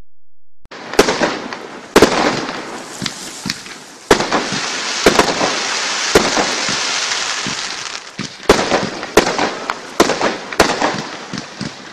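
Paramount 'Whispering Palms' 40-shot firework cake firing: sharp bangs of bursting shells over a continuous crackling hiss. The bangs start under a second in, come about a second apart at first, and follow each other faster in the last few seconds.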